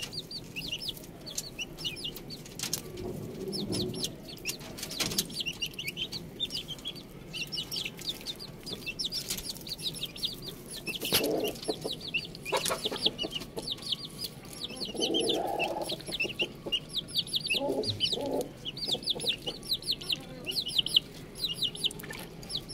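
Chicks and ducklings peeping: a dense, unbroken stream of short high calls, with a few lower calls mixed in now and then.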